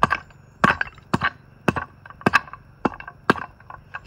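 An axe chopping dry cedar into kindling: sharp wooden strikes, about two a second.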